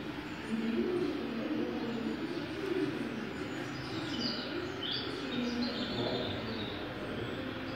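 Indistinct low murmur, like voices in a room, with a handful of short, high, falling chirps in the middle.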